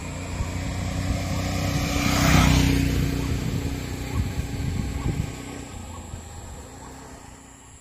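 A motor vehicle's engine running along the road. It grows louder to a peak about two and a half seconds in, then fades away as it passes.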